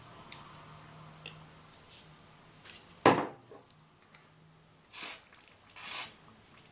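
Small metal-on-plastic ticks and knocks from a screwdriver working on the open mouse's left-button microswitch, with one sharp click about three seconds in, then two short hisses about a second apart.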